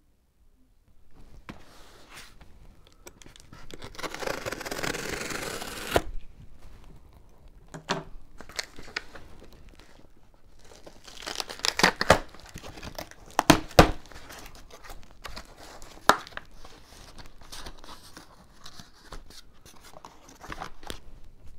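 Packing tape torn from the top of a cardboard box: a long tear about four seconds in that stops abruptly, then the flaps are pulled open, with cardboard rustling and several sharp knocks.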